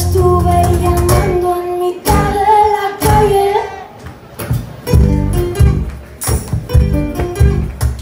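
A woman's voice sings long, wavering notes over acoustic guitar; about halfway through the voice drops out and the acoustic guitar strums chords on its own.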